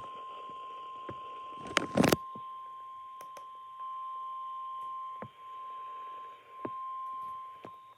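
Midland weather radios sounding the 1050 Hz NOAA Weather Radio warning alert tone, one steady pitch, with a few sharp clicks and two loud noise bursts about two seconds in. The tone signals that a warning message, here a severe thunderstorm warning, is about to be broadcast.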